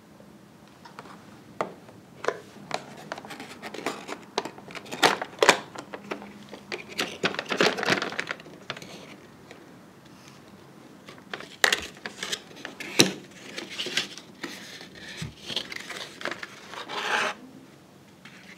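Rustling and rubbing of a paperboard box and its tissue paper being handled and opened, with scattered sharp little taps and clicks.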